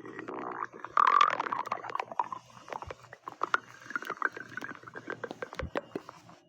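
Stomach growling: a long, irregular gurgling rumble studded with many small pops, loudest about a second in.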